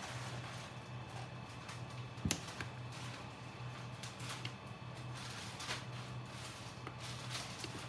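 Quiet room tone: a steady low hum, with scattered faint small clicks and one sharp click about two seconds in.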